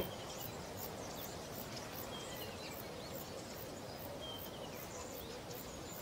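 Steady outdoor nature ambience with a few faint, short bird chirps.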